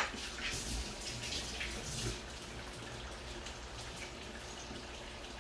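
Faint, steady trickling and dripping of running water, with a short knock right at the start.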